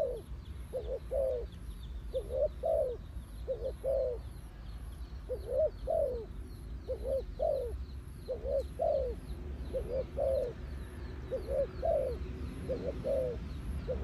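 Spotted dove cooing: short, low coos in pairs and triplets, repeating every second or two.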